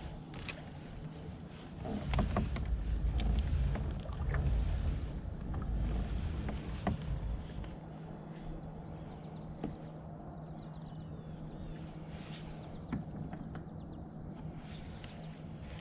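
Handling noise from fishing out of a small paddle craft: a low rumble with scattered knocks for about five seconds starting about two seconds in, then a steady quiet background with occasional small clicks.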